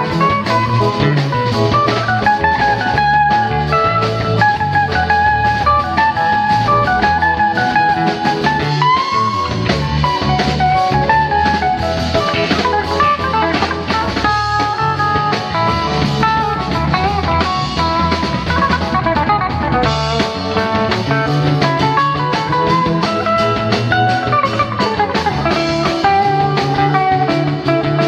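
Live rock band playing an instrumental jam: electric guitar soloing with bending, gliding notes over bass, keyboards and a drum kit.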